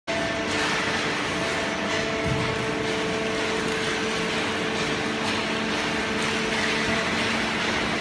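Horizontal hydraulic baler and its feed conveyor running, a steady machine hum with several steady tones over a noisy drone.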